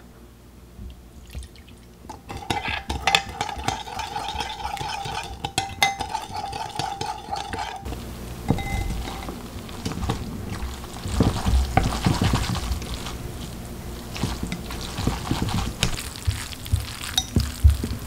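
A spoon stirs soy-sauce noodle dressing in a glass bowl, clinking and scraping against the glass. About eight seconds in it gives way to cooked thin wheat noodles being tossed through the sauce with chopsticks: wet squishing with clicks of the chopsticks on the bowl.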